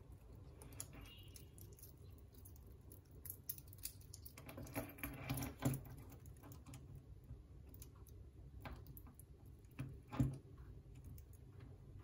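Metal links of a Leatherman tool bracelet clicking and clinking as they are handled and fitted to a watch, a run of small clicks with a busier patch about five seconds in and one sharper click near ten seconds in.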